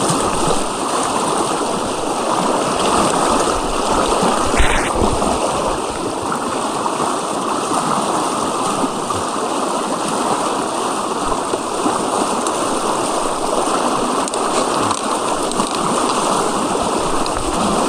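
Fast-flowing river water rushing steadily, the current running high and swift.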